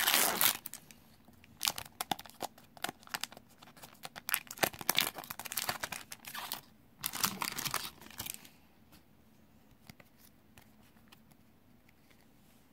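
Foil Magic: The Gathering booster pack wrapper being torn open and crinkled, in crackling bursts over about the first eight seconds.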